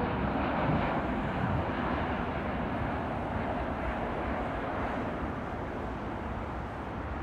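Jet engines of an Air Canada Boeing 737 MAX 8 on final approach, gear down: a steady, even roar that slowly fades as the aircraft passes and moves away.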